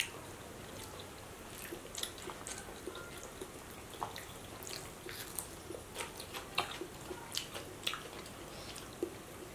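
Quiet hand-eating sounds: soft chewing, small mouth smacks and fingers picking at fried fish and rice, heard as a scatter of small irregular clicks.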